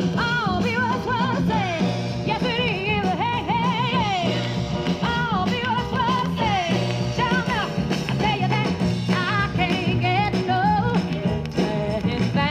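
A live 1960s soul recording, a woman singing with her band, played from a vinyl LP on a Califone 1815 K record player through its separate speaker box.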